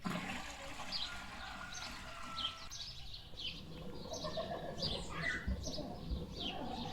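Small birds chirping: many short, high chirps that sweep downward, repeated irregularly throughout, over a low steady background rumble.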